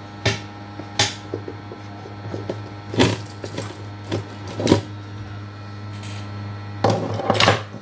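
Small metal tools being handled on a repair bench: scattered sharp clicks and taps, with a denser clatter near the end, over a steady low hum.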